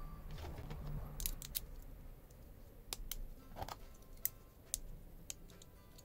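Light metallic clicks and clinks of small steel Swiss Army knife tools and liners handled and fitted together, about eight scattered clicks.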